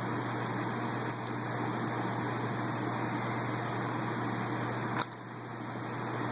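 Steady background hum and hiss, with a few faint clicks from a Rubik's Cube being turned by hand. One sharper click about five seconds in, after which the level dips briefly.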